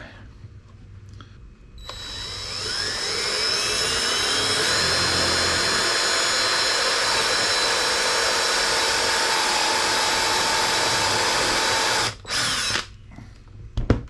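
DeWalt cordless drill with a step bit drilling a hole through a motorcycle side cover. The motor spins up with a rising whine about two seconds in, runs steadily for about eight seconds, stops, then gives one short burst near the end.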